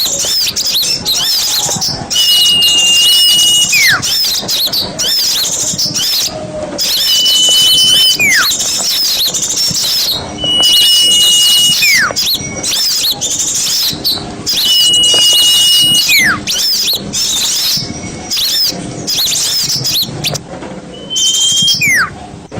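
Recorded song of a small songbird, played as masteran tutor song for competition birds: a phrase that comes round about every four to five seconds, a steady high whistle about a second long that drops away in a quick downward slur, followed by rapid high twittering chatter.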